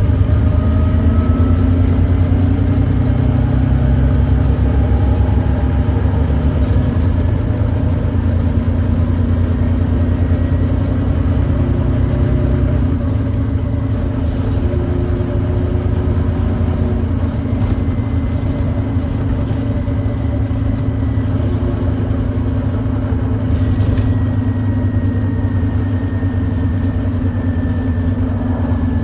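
Volvo D9B 9.3-litre diesel engine of a Volvo B9TL double-decker bus running steadily under way, with the thrash of an exhaust leak, and a faint whine that slowly changes pitch.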